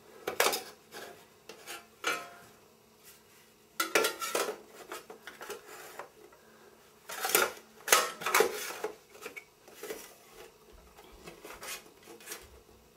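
Metal drive carrier and DVD burner clattering and scraping against each other as the burner is slid into the carrier and lined up with its screw holes: a string of irregular knocks and scrapes, loudest about seven to eight seconds in.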